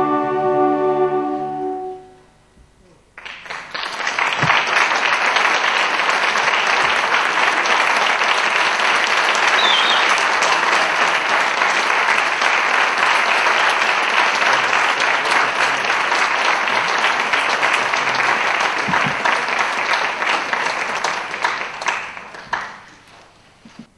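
A youth wind band's final held chord dies away, then after a brief pause the audience applauds steadily for about twenty seconds before the clapping fades out near the end.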